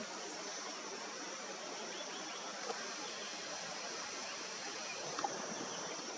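Steady outdoor ambience: an even hiss with a thin, steady high-pitched tone over it, and a couple of faint clicks about two and a half and five seconds in.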